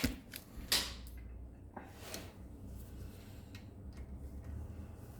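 A few light metallic clicks and knocks of tools and parts being handled as the main bearing caps come off a 1JZ engine block, over a faint steady low hum.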